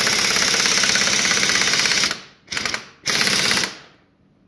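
Impact wrench hammering on a gearbox shaft nut to break it loose: one long burst of about two seconds, then two short bursts, stopping a little before the end.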